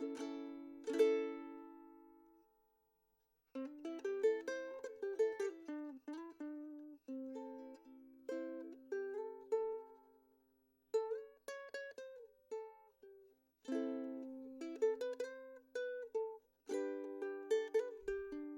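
Enya E6 solid maple tenor ukulele played acoustically, unplugged. A chord rings out and fades about a second in, then a short pause. Then a melody of single plucked notes and small chords, with brief breaks.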